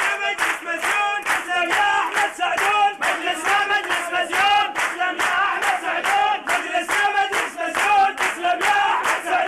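A crowd of men chanting together in unison with a steady rhythm, loud and continuous.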